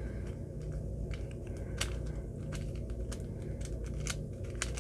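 Layers of a MoYu GEO Cube B, a transparent plastic 3x3 twisty puzzle with missing pieces, being turned by hand: irregular light plastic clicks as the layers snap into place, over a steady low hum.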